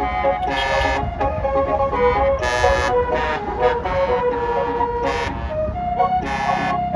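Basuri telolet bus horn playing a tune of stepped notes, with several short, brighter and buzzier blasts among them, over a low engine rumble.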